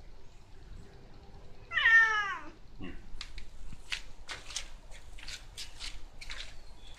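A domestic cat meows once, a single loud meow about two seconds in that falls in pitch and lasts just under a second. From about three seconds on comes a run of short scratchy noises, two or three a second.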